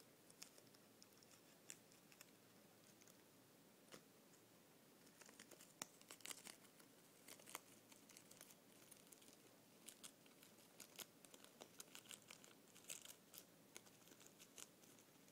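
Guinea pig biting and chewing red leaf lettuce: faint, crisp crunches and tearing clicks, sparse at first and coming thick and fast from about a third of the way in.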